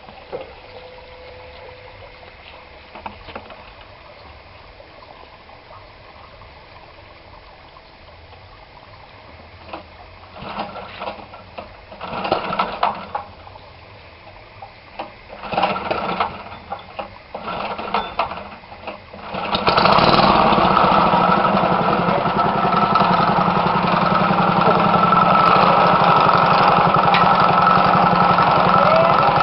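Small engine of a homemade well-drilling rig: a few short, uneven bursts, then about two-thirds of the way in it catches and runs steadily and loudly.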